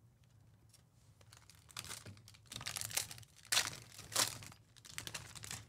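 Plastic trading-card pack wrapper crinkling and tearing, in several rustling bursts, the loudest about three and a half and four seconds in.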